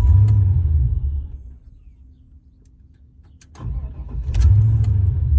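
1994 Chevrolet Impala SS's 5.7-litre LT1 V8 firing and running for about a second and a half, then dying. About two seconds later it is cranked again, catches, and starts to die away near the end. The engine starts but won't keep running: it stalls about 1.5 seconds after catching.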